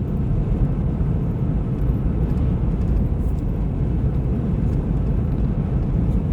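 Steady low rumble of road and wind noise inside a vehicle's cab while driving at highway speed in strong wind.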